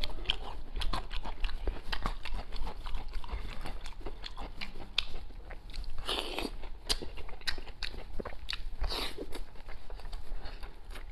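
Close-miked chewing and biting of braised chicken head and comb: wet, irregular mouth clicks and light crunching, with two louder, breathier stretches about six and nine seconds in.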